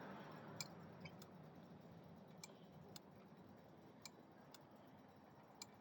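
Faint, irregular light clicks from a minibike's hydraulic brake lever being pumped by hand while the brakes are bled, over near silence.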